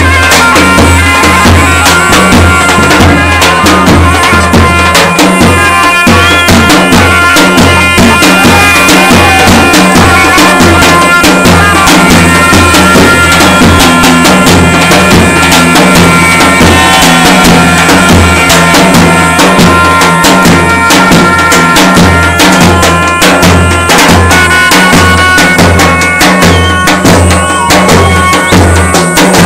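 Zurle (zurna shawms) and a tupan bass drum playing a traditional Albanian dance tune, loud: a reedy melody over held tones, with a steady beat on the drum.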